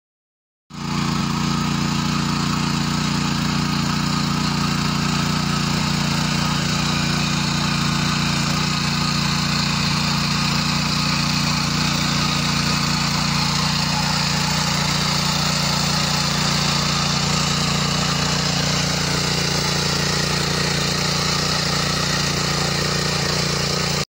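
Single-cylinder 212 cc petrol engine of a BlackStone MHG 2400 tiller running steadily under load as its tines churn soil. It starts abruptly about a second in.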